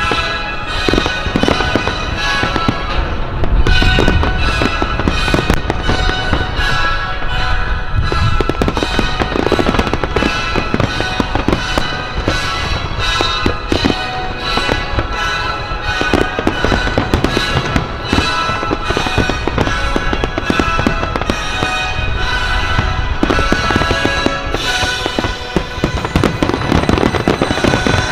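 Aerial fireworks bursting and crackling in rapid, continuous succession over music.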